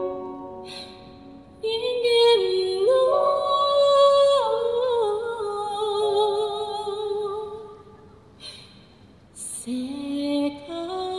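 A woman singing long held notes with vibrato over instrumental backing, stepping between pitches. The music drops away about eight seconds in, then the voice comes back in near the end.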